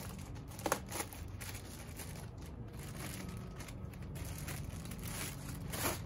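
Packaging being handled while parts are taken out of an unboxed e-bike carton: crinkling and rustling, with a couple of sharp knocks about a second in and a louder rustle near the end.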